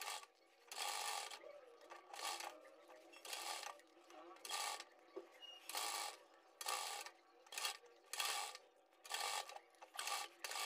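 Domestic sewing machine stitching in short runs of about half a second, roughly one a second, as fabric piping is sewn round a curved neckline.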